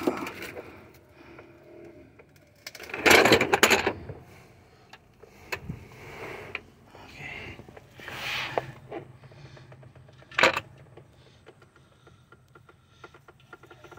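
Rustling and scattered metallic clinks of hand tools while the oil drain plug is refitted under a 2017 Ford Expedition. There is a louder burst of rustling about three seconds in and a single sharp clink about three-quarters of the way through.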